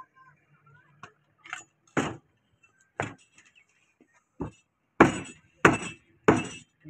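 Heavy butcher's cleaver chopping beef on a wooden log chopping block: a series of sharp chops, spaced out at first, then three loud ones in quick succession near the end.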